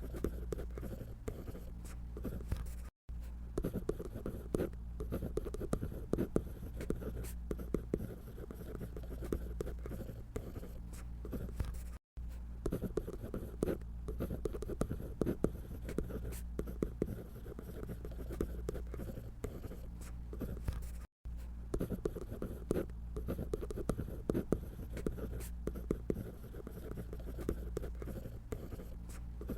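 Scratchy sound of a drawing tool on paper: a dense run of short strokes over a steady low hum. The sound drops out for a split second three times.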